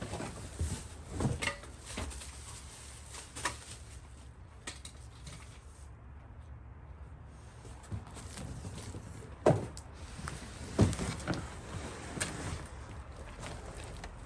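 Irregular knocks, clicks and clatter from furniture parts being handled and fitted together during assembly, with two louder thumps about two-thirds of the way in.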